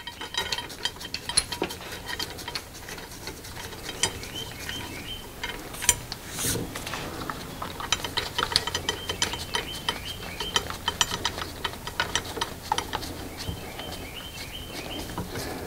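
Ratchet clicking and small metal clinks as bolts are run through a yoke puller plate into a differential pinion yoke, many quick clicks with a few louder knocks.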